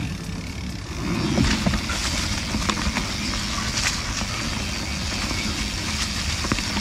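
Canyon Spectral CF mountain bike rolling along a dirt trail: a steady rush of wind and tyre noise with scattered clicks and rattles from the bike over rough ground.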